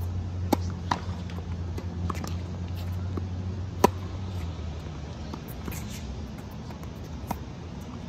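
Tennis rally on a hard court: scattered sharp pops of racket strings hitting the ball and the ball bouncing. The loudest is a close forehand strike about four seconds in. A low steady hum underneath fades out about halfway through.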